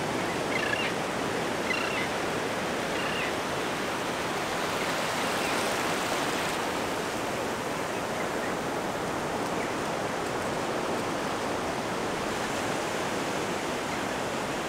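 Ocean surf washing up over a flat, shallow beach: a steady, continuous rush of water with no breaks.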